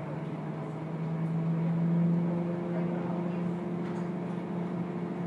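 Scania K230UB single-deck bus under way, heard from inside the passenger cabin: a steady drone from the engine and drivetrain, rising a little in pitch and loudness over the first two seconds, then holding slightly quieter.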